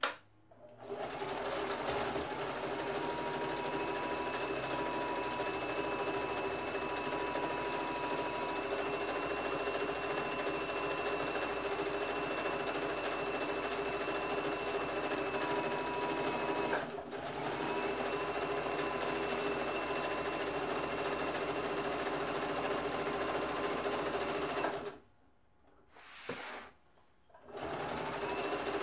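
Electric household sewing machine running steadily as it stitches a seam through layered fabric, its motor pitch rising each time it starts up. It pauses briefly about two-thirds of the way through, stops twice near the end with a short run in between, and starts again just before the end.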